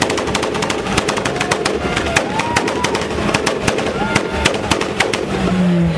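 Car engine held on a two-step launch-control rev limiter, its exhaust popping and banging in rapid, irregular cracks.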